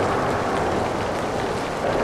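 Rain falling with light traffic passing on the wet bridge: an even wash of noise that swells slightly near the start and again near the end.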